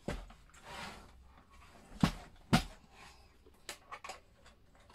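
Plastic case of a Commodore Amiga A600 being handled and turned over on a desk: a short scrape, then two sharp knocks about half a second apart, followed by a few light clicks.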